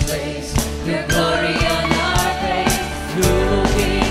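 Live worship band playing: a singer over acoustic guitar and a drum kit keeping a steady beat. About three seconds in, the bass gets much heavier and the band plays fuller.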